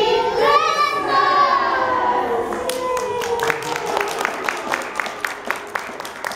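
Women and small children singing together, the last note held and sliding down. Then, about two and a half seconds in, the group claps in an even rhythm, about four claps a second.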